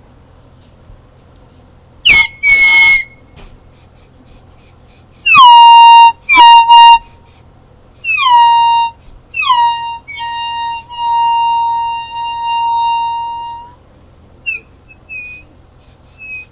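MLG air horn blasting over and over: two short blasts about two seconds in, two more a few seconds later, then a run of longer blasts, the last held for nearly two seconds. Each blast is a loud, steady, high horn tone that dips slightly in pitch at its start.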